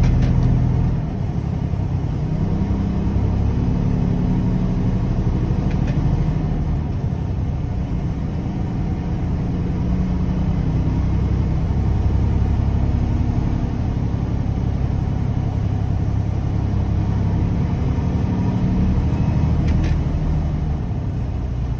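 Semi truck's diesel engine and road noise heard from inside the cab while driving on the highway: a steady low rumble whose engine note rises and falls a little, with a few faint clicks.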